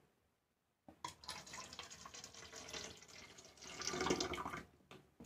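Alcohol being poured into a sports water bottle that serves as the sanitizer dispenser's reservoir. The pour starts about a second in, runs for about four seconds, is loudest near its end and then stops.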